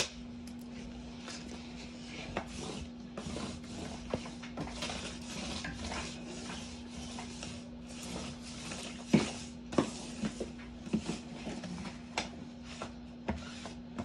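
Sticky lint roller rolled over carpet: an irregular rough rubbing with scattered clicks and knocks, the loudest knock about nine seconds in.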